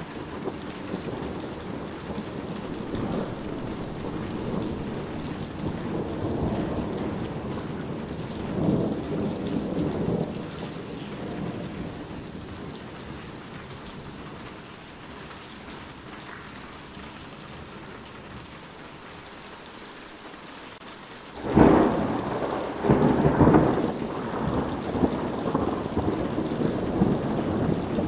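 Heavy rain falling steadily through a thunderstorm. Low rolling rumbles of thunder swell and fade over the first ten seconds or so. Later a sudden loud thunderclap breaks in, followed by more rumbling.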